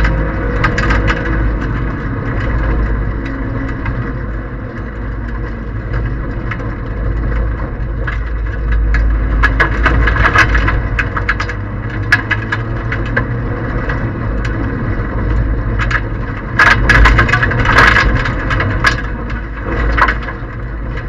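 Toyota Aygo 1.0 rally car's three-cylinder engine running hard, heard from inside the cabin, with loose gravel clattering against the underside and wheel arches. The stone strikes are densest about ten seconds in and again from about seventeen to nineteen seconds.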